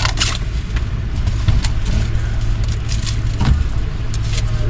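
Car engine idling, heard from inside the cabin, with scattered rustles and clicks as fast-food bags and drinks are handled.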